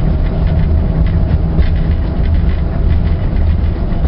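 Railbus diesel engine running steadily as the car moves along the track, heard inside the driver's cab: a continuous low drone with a few faint clicks from the rails.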